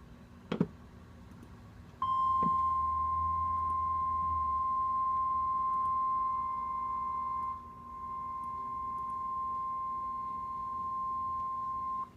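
NOAA Weather Radio warning alarm tone: a single steady 1050 Hz tone lasting about ten seconds, starting about two seconds in. It signals that a warning message is about to be broadcast. A short click sounds just before it.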